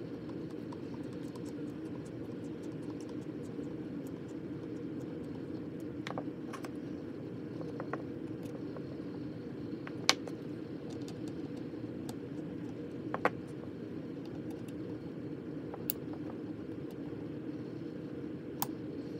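Small clicks and taps of a precision screwdriver, screws and tweezers being handled and set down on a tabletop, scattered over a steady low background hum; the sharpest tap about ten seconds in.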